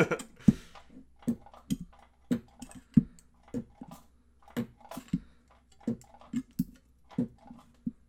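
Homemade microwave-oven-transformer spot welder firing weld pulse after weld pulse on thin overlapping sheet metal. Each pulse is a sharp snap with a brief low hum from the transformer, coming irregularly about one to two times a second.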